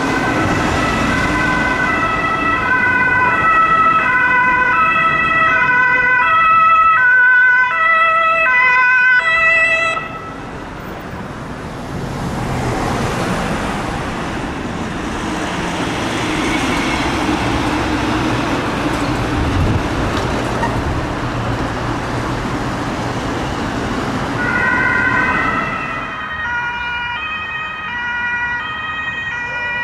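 German ambulance siren sounding a stepped sequence of tones for about the first ten seconds, then breaking off into steady city traffic noise. About 26 seconds in, a second ambulance siren starts up with the same kind of stepped tone sequence.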